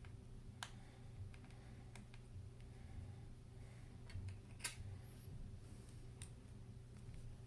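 Faint, scattered clicks and taps of a small screwdriver and tiny metal screws as the screws holding an iPad Air 2's screen are undone, the sharpest click about two-thirds of the way through, over a steady low hum.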